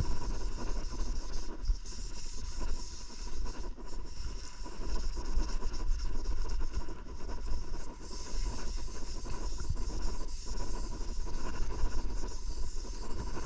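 Hand sanding the clear coat of a motorcycle fender with a maroon abrasive pad: a continuous scrubbing that rises and falls with the back-and-forth strokes. The sanding knocks down the rough texture that the metalflake leaves under the clear.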